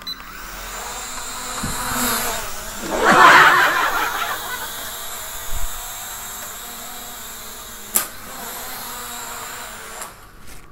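E88 mini quadcopter drone's propellers whirring as it spins up and lifts off, loudest about three seconds in, then a steady high buzz while it hovers. A single sharp tick sounds about eight seconds in, and the buzz falls away just after ten seconds.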